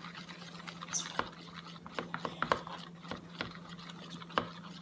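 Homemade slime being kneaded and stretched by hand: irregular small sticky clicks and pops, over a faint steady hum.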